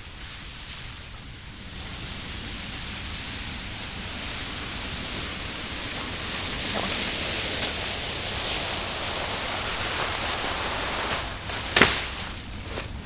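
Steady rustling of leaves and branches that grows slightly louder, with one sharp snap near the end.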